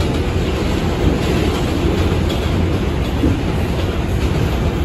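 Inside an R142 subway car running at speed: a steady rumble of wheels on the rails, with faint clicks from the rail joints.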